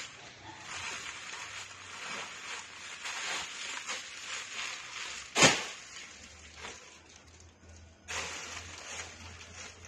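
Plastic-bagged clothes rustling as they are handled, in uneven bursts, with one sharp knock about five and a half seconds in.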